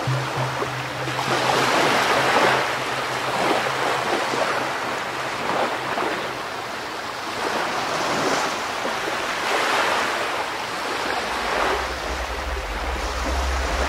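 Ocean surf: waves washing in repeated swells every second or two. A low steady tone sounds in the first few seconds, and a low rumble comes in near the end.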